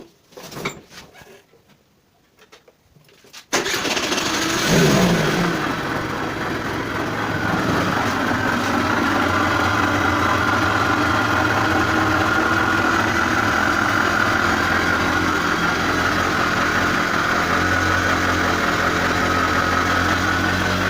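Honda Dio scooter's small two-stroke engine starting after a few seconds of clicks, blipping briefly, then idling steadily. Running with a foreign noise that the mechanic suspects comes from the transmission.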